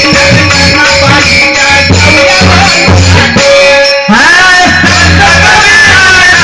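A song: a solo voice over instrumental accompaniment with a steady beat, with a brief break about four seconds in.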